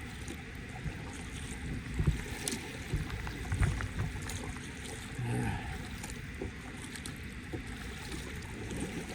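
Kayak paddle strokes splashing in moving river water, heard through a helmet-mounted phone with wind on its microphone. Several low knocks and thin clicks come through the mount between about two and four seconds in.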